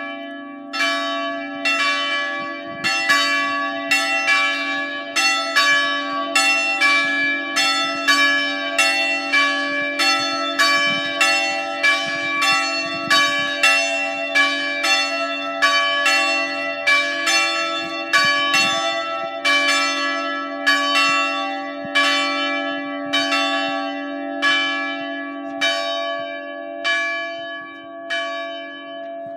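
The two smaller of a three-bell Ambrosian-system peal, cast by Giovanni Battista Mazzola in 1845 and electrically swung, ring full swing with strikes alternating at about one every 0.8 s over a steady lingering hum. The smallest bell is out of tune. The strikes grow weaker near the end.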